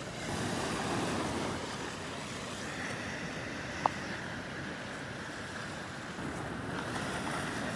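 Steady wash of ocean surf breaking on the beach, with one short, sharp sound about four seconds in.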